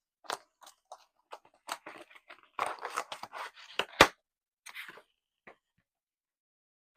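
Cardboard shipping box being opened and handled by hand: a run of scratching, crinkling and tearing noises, with a sharp knock about four seconds in.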